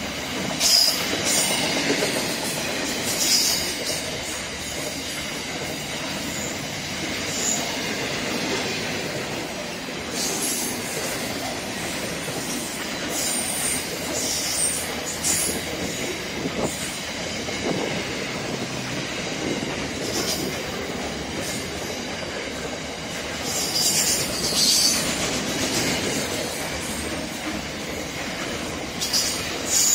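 Container freight train passing close at speed: a steady rumble and clatter of wagon wheels on the rails, with brief high-pitched screeches every few seconds.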